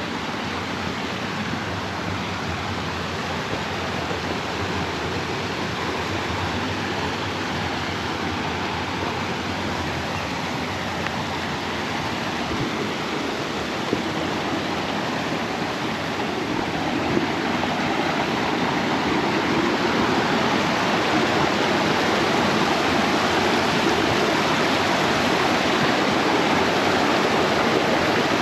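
Waterfall on a river: a steady rush of falling water that grows louder in the second half.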